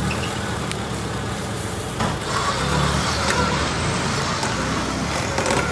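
UAZ off-road vehicle's engine running steadily while the truck is stuck in a bog, growing a little louder about two seconds in.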